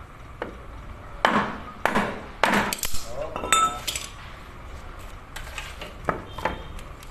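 A wooden beam knocking a piston down into the cylinder bore of a HOWO diesel engine block: a run of four hard knocks about half a second apart, then lighter knocks and short metallic clinks and rings.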